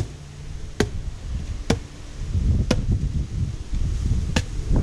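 A blade chopping into a coconut's husk: about six sharp chops, roughly a second apart.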